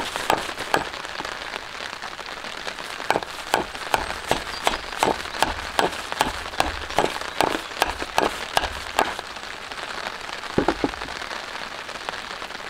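Hatchet hewing a split wooden slab held upright on a chopping stump: a quick run of short blade strikes on the wood, about three a second, which stops about nine seconds in, with a couple more strikes shortly after.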